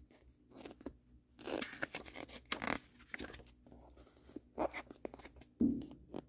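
Paper rustling and scraping in several short strokes, the sound of a picture book's pages being handled and turned.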